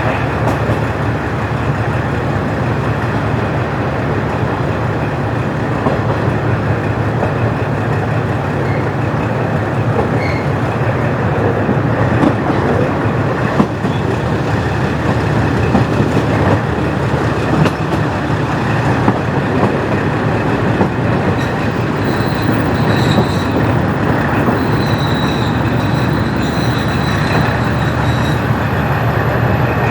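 KiHa 40-series diesel railcar, with its original DMF15HSA engine, running along the track with steady rail and engine noise. A faint high-pitched squeal comes in about two-thirds of the way through.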